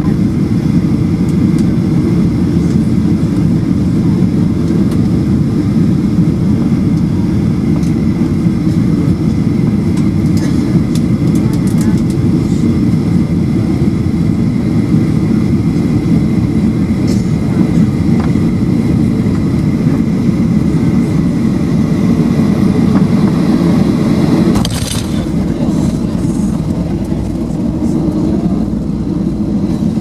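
Jet airliner cabin noise during landing: a steady rumble of engines and airflow as the plane touches down and rolls out on the runway. About 25 seconds in there is a brief clatter, and after it the rumble drops a little.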